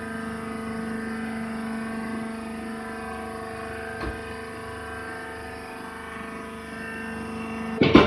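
Hydraulic rice husk baler's power unit running with a steady, even hum. A short click about halfway through and a sharp knock near the end, where the hum changes.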